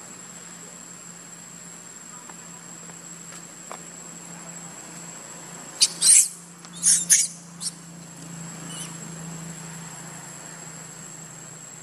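Baby long-tailed macaque giving a quick run of four or five short, shrill squeals, about six to eight seconds in.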